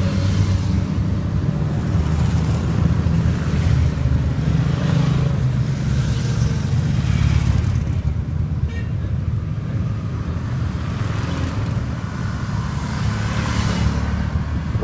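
A column of motorcycles riding past one after another, a steady low engine drone that swells and eases as bikes approach and go by.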